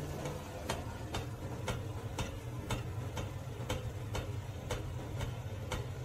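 Regular sharp ticking, about two ticks a second, over a low steady hum.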